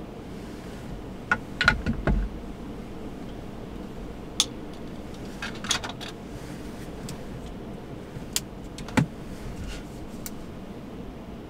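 Scattered sharp clicks and light knocks of small hard objects, about eight in all with a cluster near two seconds in, over a steady low hiss.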